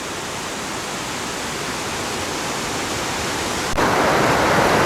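Small, layered waterfall: a steady rush of falling water that steps up suddenly louder nearly four seconds in.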